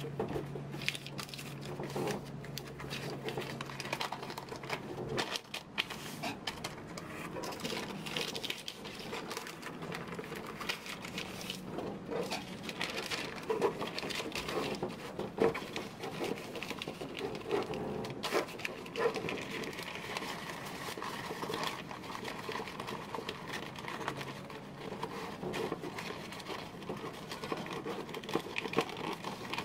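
Wrapping paper crinkling and rustling in irregular crackles as it is folded and creased by hand around a canvas painting. A low steady hum runs underneath for the first five seconds or so.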